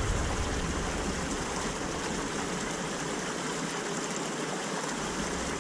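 Steady rush of water pouring out of a culvert pipe into a canal, an even hiss with no pauses.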